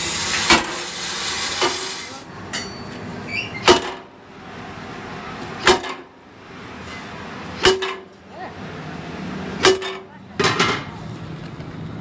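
Heavy wooden mallet striking a steel truck rear axle housing about every two seconds, each blow a sharp knock with a short metallic ring, the last two close together. A steady gas-torch hiss runs under the first blows and stops about two seconds in.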